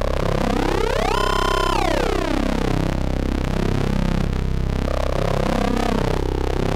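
Eurorack modular synthesizer droning, a Rossum Trident oscillator patch with its 'zing' ring modulation between synchronized oscillators added: a dense, buzzy tone whose upper overtones glide up about a second in, hold, and slide back down, with further pitch sweeps later as the knobs are turned.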